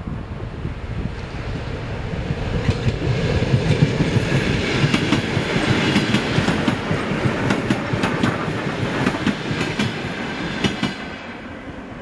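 Train passing at speed, its wheels clicking in pairs over the rail joints. The clickety-clack builds over the first few seconds and fades near the end.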